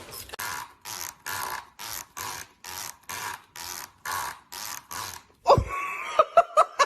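Comb bristles being scratched, a rasping stroke about twice a second. Near the end the rasping stops and a pitched voice breaks in.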